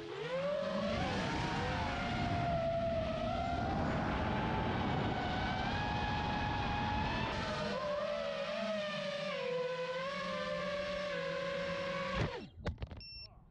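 FPV drone's motors and propellers whining in flight, the pitch shifting up and down with the throttle. The whine cuts off abruptly about twelve seconds in, followed by a short electronic beep.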